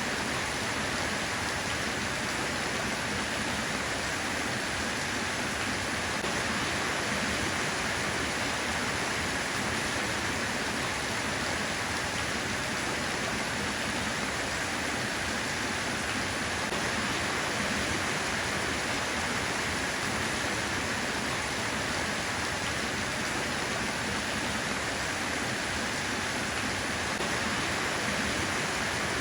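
Steady rain falling, a constant even hiss with no separate drops or thunder standing out.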